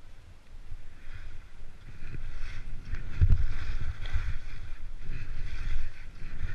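Wind buffeting the GoPro Hero 3's microphone during a downhill ski run, with the hiss and scrape of skis sliding on packed snow; it grows louder about two seconds in.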